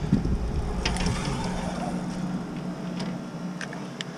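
Handling noise as a small fish is unhooked by hand: a low rumble in the first second or so, then a few sharp clicks, over a steady low hum.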